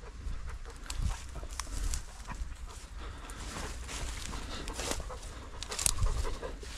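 Footsteps pushing through dry grass and brambles, the stalks rustling and crackling irregularly, with a few low bumps on the microphone about a second in and near the end.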